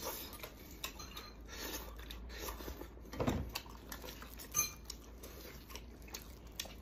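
Stewed lamb leg being torn apart by hand in plastic gloves over an enamel platter, with scattered light clicks and knocks against the dish. A sharper clink with a brief ring comes a little after the middle.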